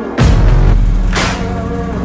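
Soundtrack music with a deep sustained bass and a sharp hit about once a second.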